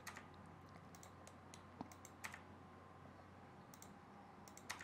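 Faint, scattered clicks of a computer keyboard and mouse over near-silent room tone, a few isolated taps a second or so apart.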